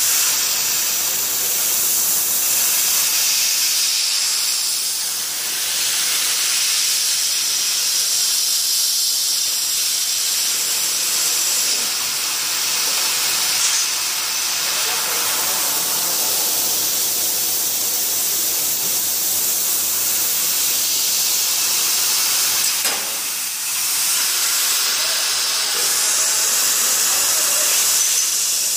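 CO2 laser cutting head cutting steel plate: the assist-gas jet from the nozzle makes a steady, loud hiss, dipping briefly once late on.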